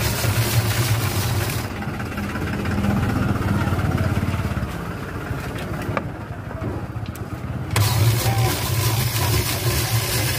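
Ice shaving machine shaving a block of ice: a steady low hum under a loud scraping hiss of ice on the blade. The hiss drops away about two seconds in and comes back about eight seconds in, while the hum runs on.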